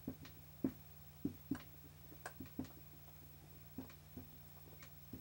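Dry-erase marker writing on a whiteboard: about a dozen faint, short, irregular strokes and taps as letters are written, over a steady low hum.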